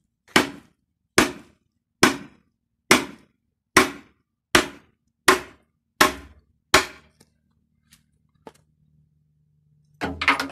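Sledgehammer blows breaking the cast-iron end cover off a large old electric motor: nine sharp strikes a little under a second apart, each ringing briefly. After the blows stop, a faint low hum, and near the end a quick cluster of knocks as the broken cover is handled.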